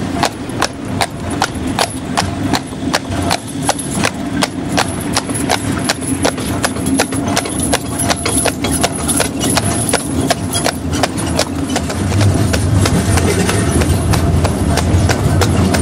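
Heavy draught horse walking, its hooves clip-clopping on the tarmac between the tram rails at about three steps a second. The hoofbeats fade in the last few seconds as a low rumble from the horse tram's wheels on the rails grows louder.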